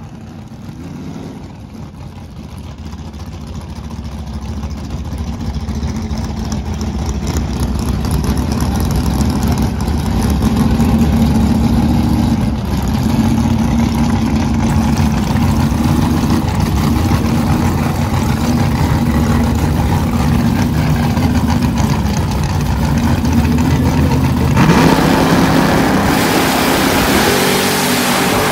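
Drag-racing car engines idling and blipping the throttle as they stage, their lumpy idle growing louder over the first ten seconds. About 25 seconds in, a sudden, harsher full-throttle roar as the cars launch.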